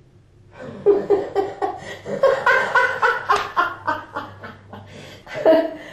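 Human laughter: a run of short, rhythmic laughs that starts about half a second in and dies away near the end.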